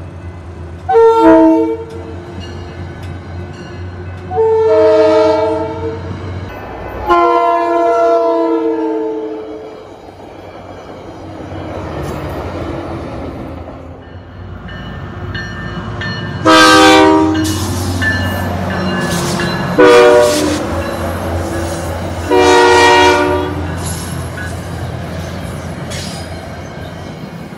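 Diesel passenger train's multi-note air horn sounding a series of long and short blasts, with the pitch of one blast falling as the train passes. A low engine rumble runs beneath.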